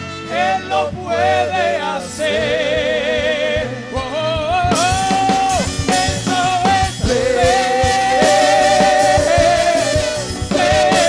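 Live worship band playing loudly: a held, wavering melody line from trumpet and voices over a drum kit and electric guitar.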